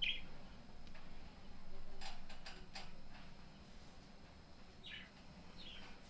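Pet budgerigar giving short, high chirps: one right at the start and two that fall in pitch near the end, with a few sharp clicks in the middle.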